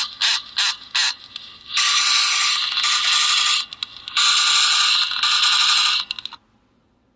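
Battery-driven mechanism of a Yonezawa Atomic robot tin toy running: a few short clicks, then two loud runs of gear grinding and ratcheting of about two seconds each, stopping abruptly about six seconds in.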